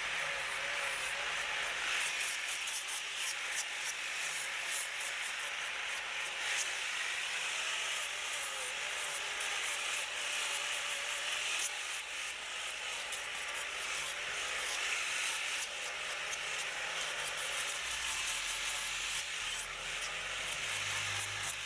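Wood being abraded: a steady rasping hiss as the carved pine Christmas tree is worked over with a hand-held tool.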